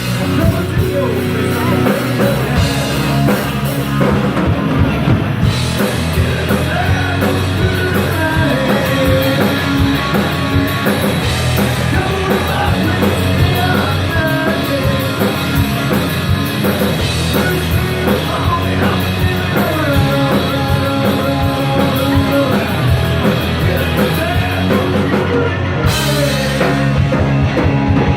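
A live rock band playing loud and steady, with a singer and a drum kit.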